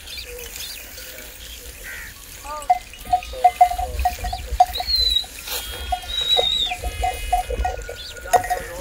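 Water gurgling and splashing in a run of short, irregular bloops, with two brief high whistling calls in the middle.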